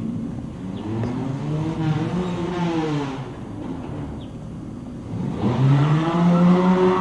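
Car engine revving up and back down twice, the second time louder.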